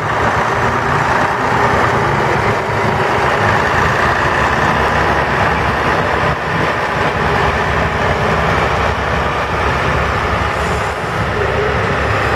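Heavy diesel engines of a wheel loader and a dump truck running steadily, mixed with passing street traffic.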